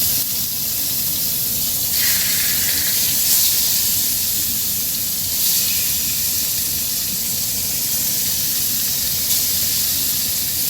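Marinated chicken pieces frying in hot oil on a tawa, a steady sizzling hiss.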